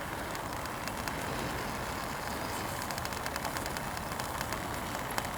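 Camping stove running steadily with a pot of water at the boil, making an even rushing sound with a few faint crackles.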